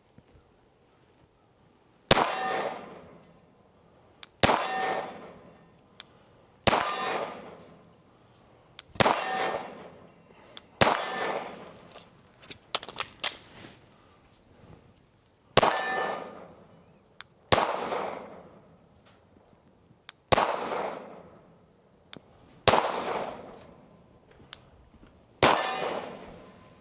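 About ten gunshots, spaced two to three seconds apart, each followed at once by the ringing clang of steel targets being hit. A few faint clicks fall between shots about halfway through.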